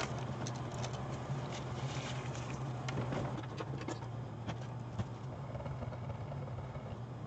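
Faint scattered clicks and taps of handling at a workbench, one slightly louder about five seconds in, over a steady low hum.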